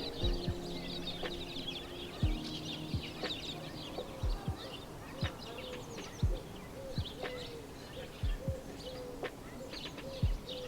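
Peafowl calling, with a run of short repeated honking calls from about four seconds in, over chirping small birds and occasional low thumps.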